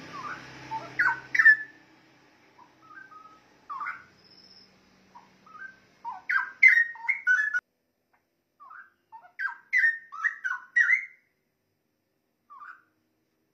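Straw-headed bulbul (cucak rowo) singing: three loud phrases of quick, gliding whistled notes a few seconds apart, with softer single notes between them.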